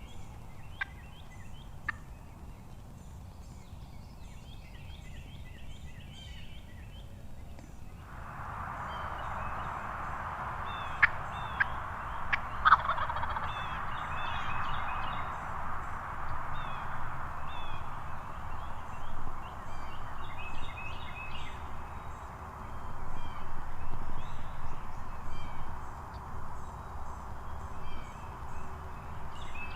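Wild turkeys calling across a field, with repeated short gobbling and yelping bursts throughout. A steady rushing noise comes in about eight seconds in and stays under the calls, and a few sharp clicks sound near the start and again midway.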